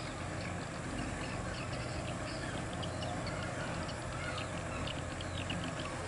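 Volvo FM truck's diesel engine running low and steady as it pulls a heavily loaded lowboy trailer at walking pace, with a scatter of light, high ticks over the rumble.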